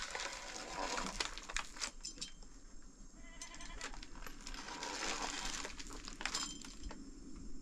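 A goat bleats, a quavering call a few seconds in, over scattered light clicks and rustling.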